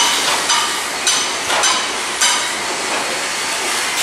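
Train wheels knocking over rail joints in an even rhythm, about two metallic clunks a second, each with a brief ringing tone, over a steady rumble of the moving train.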